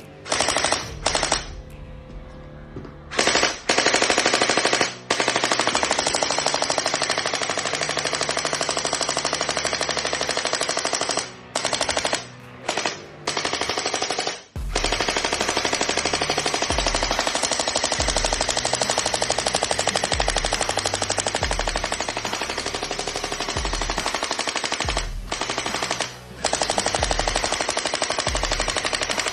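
Toy gun firing rapid automatic bursts, a dense machine-gun rattle in long strings broken by a few short pauses. From about halfway in, a deep beat of background music thumps along under it.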